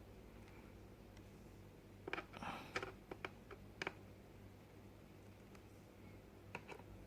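Small screwdriver tightening the laptop's bottom-cover screws one by one: a cluster of light clicks and scrapes about two seconds in, and a couple more clicks near the end, over a faint steady hum.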